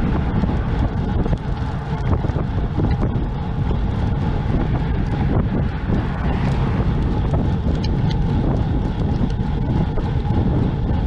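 Steady low rumble of wind buffeting the microphone of a camera carried along on a moving bicycle.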